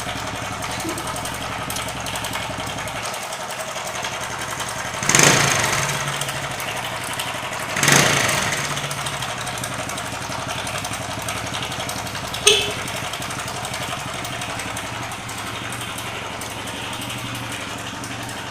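Honda Supra X motorcycle engine running steadily, with two sudden loud surges that fade over about a second, about five and eight seconds in, and a sharp click a little past halfway.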